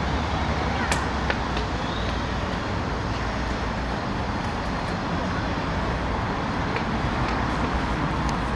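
Steady street traffic noise with a low rumble, with a couple of short clicks about a second in.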